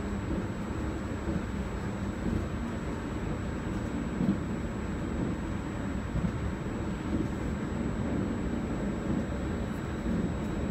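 Steady low rumble inside a regional passenger train carriage as the train runs along the track.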